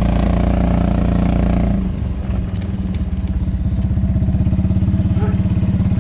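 Golf cart engine running under load, then about two seconds in its pitch drops and it settles into a steady, lower chugging.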